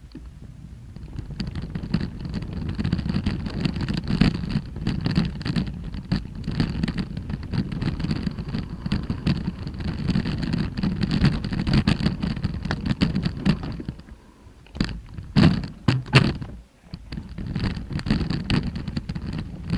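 Bicycle rolling fast down a rocky gravel trail: tyres crunching over loose stones while the bike rattles and rumbles with many rapid knocks. About fourteen seconds in it eases off briefly, with a few sharp knocks, then picks up again.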